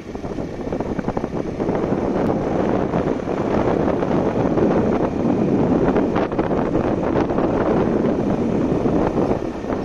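Wind buffeting the microphone: a loud, steady rumble of rushing air that flickers constantly.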